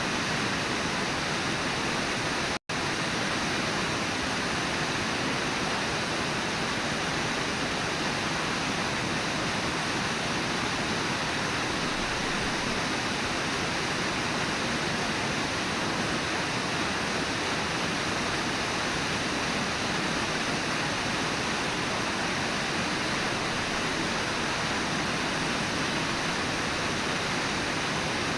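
Steady rushing of the Brooks River's flowing water, with a split-second dropout to silence about two and a half seconds in.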